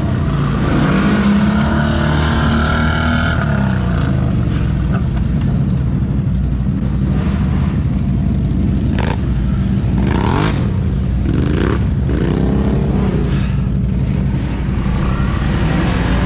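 ATV engine running under load through mud, its pitch rising and falling as the throttle is worked. A couple of short sharp noises come past the middle.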